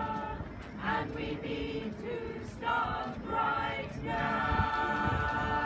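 Mixed choir of men and women singing, holding a long chord from about four seconds in.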